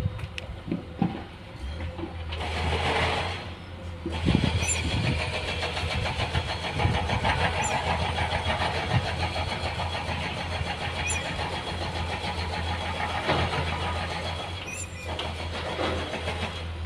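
Diesel engine of heavy construction machinery running with a steady low hum, growing louder about four seconds in. A few knocks near the start.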